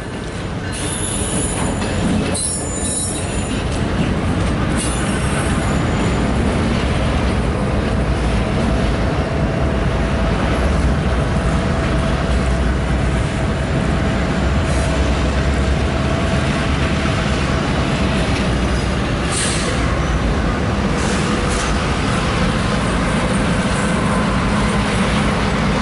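EMD GP38-2 diesel locomotive, a two-stroke V16, hauling a cut of covered hoppers at slow yard speed: a steady engine rumble with wheels rolling over the rails and a thin wheel squeal through the middle. It grows louder over the first few seconds as the train approaches.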